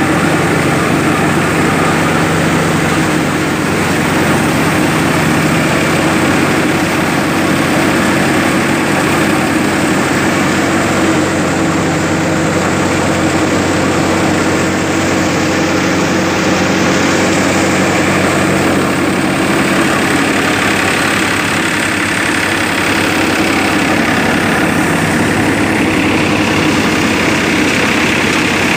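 Tractor-driven mustard thresher running steadily under load: the Farmtrac 45 tractor's diesel engine and the thresher's spinning drum and blower fan make a constant, loud mechanical drone.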